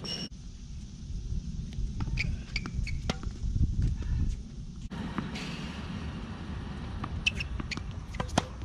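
Tennis balls struck by rackets and bouncing on a hard court, heard as scattered sharp pops, with brief squeaks of sneakers on the court surface. A steady low wind rumble runs underneath.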